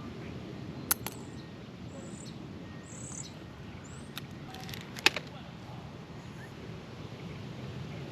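A few short, high bird chirps over a steady low hum, with sharp clicks about a second in and again about five seconds in; the clicks are the loudest sounds.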